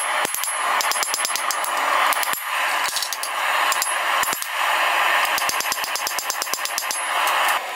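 Hammer striking a hot steel bar on an anvil: a fast run of ringing metal strikes over a steady rushing noise.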